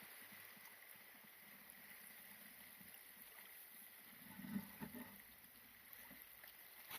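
Near silence: a faint steady hiss, with a few soft low bumps about four and a half seconds in.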